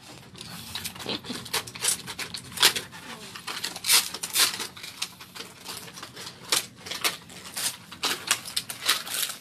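Plastic bags crinkling and rustling as they are handled, with irregular small clicks and knocks.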